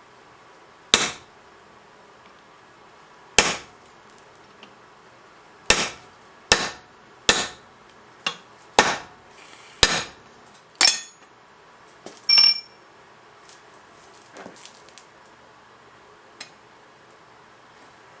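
Hammer striking steel about eight times at uneven intervals, each blow with a short, high metallic ring. A different metal clank follows a little after the last blow.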